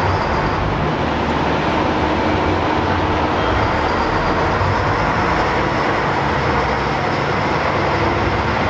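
Diesel engines of the Yufuin no Mori diesel railcar train running as it pulls out of the platform: a steady, loud noise with a low hum underneath.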